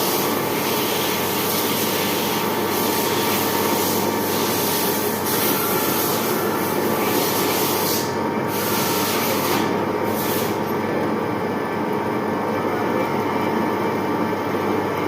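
Machine tool running steadily with a steady whine and a high hiss over it; the hiss drops out briefly twice about halfway through.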